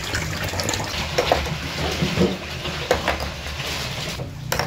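Tap water running into a basin of vegetables while hands rinse and rub them, with small splashes. It cuts off near the end.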